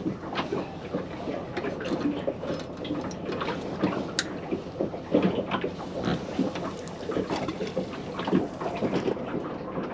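Water slapping against a small fishing boat's hull with wind buffeting the microphone, and scattered light knocks and clicks from gear handled on board.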